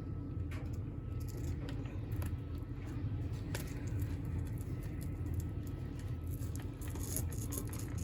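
Scattered small clicks and rattles of hard plastic as a toy parrot's body shell and clips are pried and worked apart, over a steady low hum; the clicks come more often near the end.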